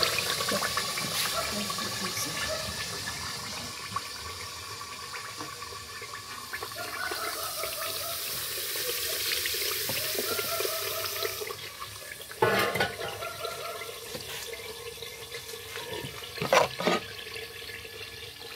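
Clear coconut oil poured from an aluminium pot through a cloth strainer into a bowl, a steady splashing stream that stops about twelve seconds in. A few sharp knocks follow as the pot is put back on the burner.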